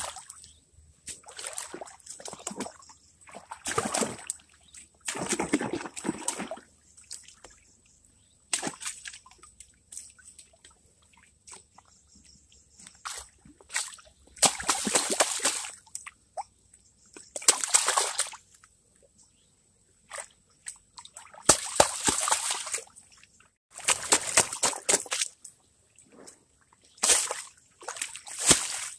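Shallow water sloshing and splashing in irregular bursts with short pauses between, as a carpet-lined gold sluice board is dipped, shaken and rinsed, washing the concentrate into a gold pan.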